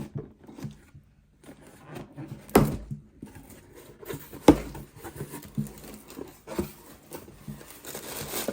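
Cardboard box being opened by hand: rubbing and scraping of cardboard with scattered light knocks, two sharper thumps about two and a half and four and a half seconds in, and a longer scraping slide near the end.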